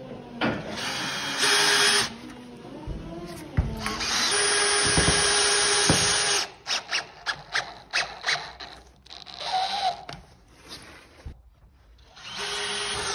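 Cordless drill drilling pilot holes through a chipboard shelf board and driving tek screws into the steel racking beam below. It runs in several separate spells, the longest in the middle, with a quick string of short trigger bursts just after it.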